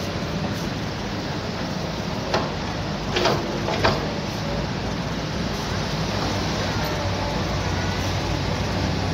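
Diesel engines of excavators and dump trucks running steadily at an earthworks site, with a few short sharp knocks a little over two seconds in and again around three to four seconds in.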